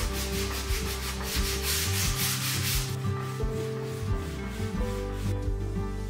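Hand sanding: sandpaper rubbed over the wooden drawer bottom in quick back-and-forth strokes, loudest for the first three seconds and fainter after.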